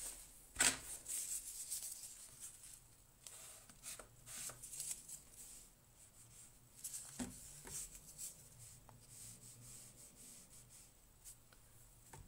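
Paintbrush dabbing and scrubbing on watercolour paper: a run of short, scratchy strokes with a few small knocks, the sharpest about half a second in.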